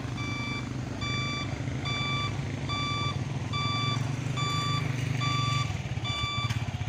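Heavy truck's reverse alarm beeping evenly, about once every 0.8 seconds, over the deep drone of its diesel engine; the engine note turns uneven and throbbing about six seconds in.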